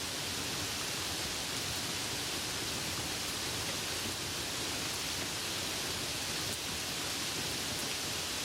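Steady soft rain falling, an even hiss with faint scattered patters of drops.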